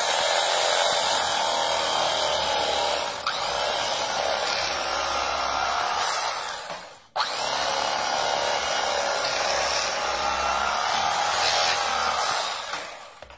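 Cuisinart electric knife running, its serrated stainless steel blade sawing through a crusty loaf of bread. It runs steadily for several seconds, stops briefly about seven seconds in, then starts again for the next slice.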